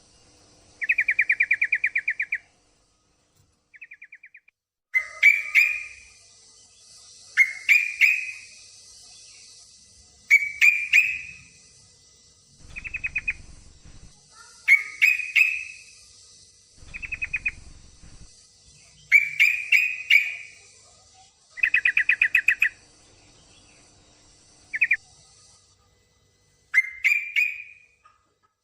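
Yellow-vented bulbul (trucukan) calling in short bouts of fast, rattling chatter, about a dozen bouts a couple of seconds apart. The calls are offered as those of a female in breeding condition calling a male.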